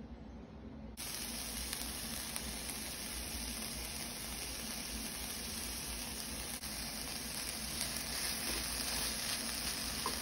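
Diced bell peppers and onion sizzling in sesame oil in a cast iron skillet as they cook down: a steady frying hiss that comes in about a second in.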